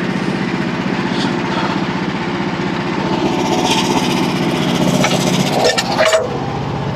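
Small gasoline engine of a portable bandsaw mill running steadily. A few sharp knocks come about five and a half to six seconds in.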